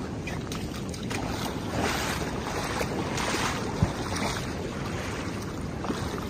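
Rushing river water with wind buffeting the microphone, louder water splashing about two and three seconds in, and a single sharp knock near four seconds.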